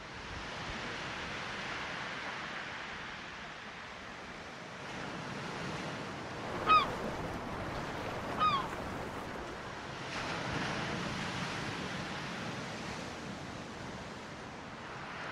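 Steady surf and ocean ambience, an even wash of wave noise. Two short bird calls stand out, about a second and a half apart near the middle, each a single slightly falling note.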